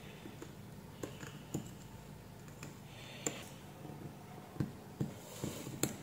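Faint, irregular light clicks and taps of steel tweezers and a soldering iron tip against a USB connector's metal shell and pins as the connector is desoldered from a circuit board.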